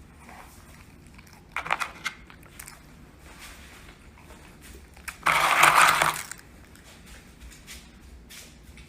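Dog getting at cookies: crunching and crinkling noises in two bursts, a short crackly one about a second and a half in and a louder one lasting about a second near the middle.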